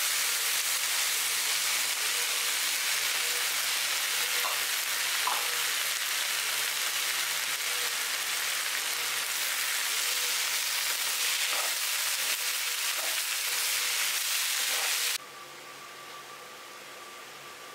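Chopped tomatoes, onions and dried red chillies sizzling in a nonstick frying pan while a spatula stirs them, with a few soft scrapes. The sizzle cuts off suddenly near the end, leaving a faint steady hum.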